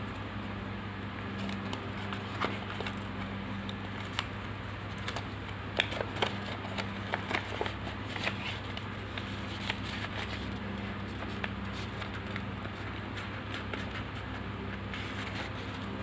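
A sheet of origami paper being handled, unfolded and creased by hand: irregular crackles and sharp clicks of stiff paper, busiest in the middle, over a steady low hum.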